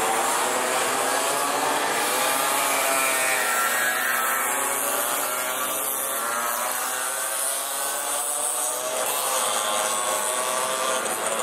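Engines of several small motorcycles and mopeds riding past one after another, their overlapping pitches rising and falling as each goes by.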